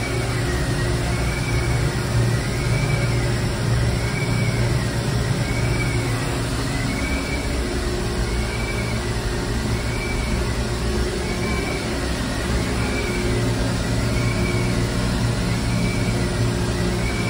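Industrial grinding machine running: a steady low motor hum with a high whine that rises and falls about every second and a half.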